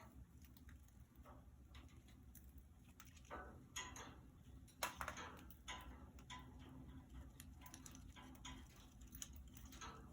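Faint, scattered small clicks and taps, with a few louder scrapes about three to five seconds in: budgies moving and pecking about their cage.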